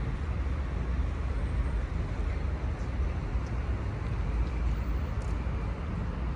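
Steady city road-traffic noise, mostly a low rumble with no single vehicle standing out.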